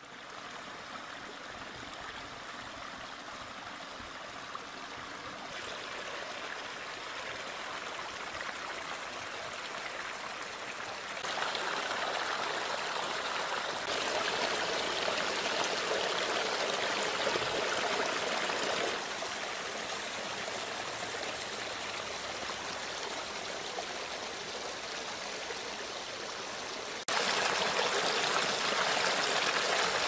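Water of a pondless waterfall splashing and trickling over stones into a small rock basin, a steady rush that abruptly grows louder or quieter several times.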